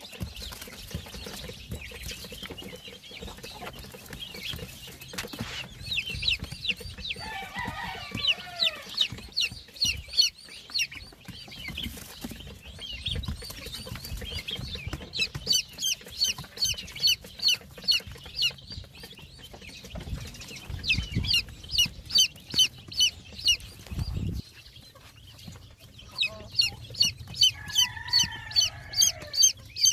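Newly hatched Rhode Island Red and Sasso cross chicks peeping: short, high, falling peeps, about three or four a second, louder and more constant in the second half. A lower call from a grown chicken comes twice, about a quarter of the way in and near the end.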